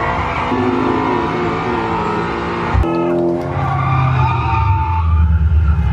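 Race-car engines running and tyres skidding, the soundtrack of a car-racing film playing in the room. A sharp knock comes about three seconds in, then a deep engine note grows louder.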